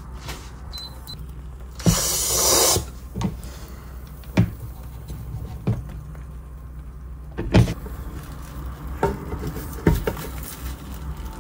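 A cooking utensil knocking and scraping in a square frying pan while a Korean egg roll with seaweed is rolled, in a string of sharp taps a second or so apart, with a brief louder rush of noise about two seconds in and a steady low hum underneath.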